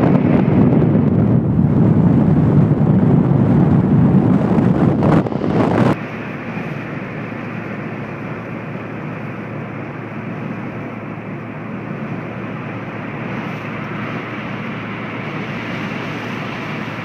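Wind and road noise inside a moving car: a loud, rough rush for about the first six seconds, then a sudden drop to a quieter, steady road hum.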